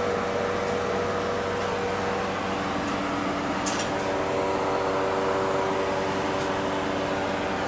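Steady machine hum made of several held tones, with further tones joining about two and a half seconds in, and one sharp click a little before the middle.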